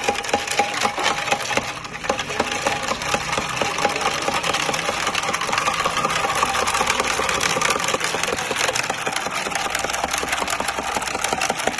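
Ice rattling and clinking inside a tall glass mixing jar as a cocktail is churned rapidly with a long stirrer: a fast, continuous clatter.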